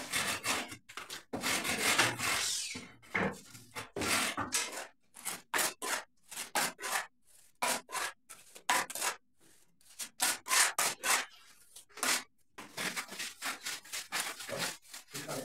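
Wooden hand float (fratacho) rubbed in quick back-and-forth strokes over freshly applied cement render mixed with plaster of Paris on a lintel, floating it smooth as it begins to set. The short scraping strokes come in runs of about two to three a second with brief pauses.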